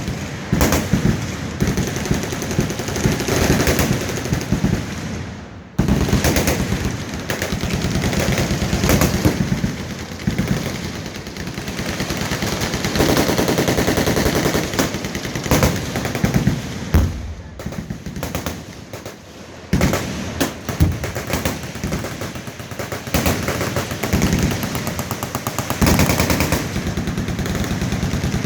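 Many machine guns firing full-auto bursts at once along a firing line. The overlapping bursts make near-continuous gunfire, with short lulls about six seconds in and again around eighteen seconds in.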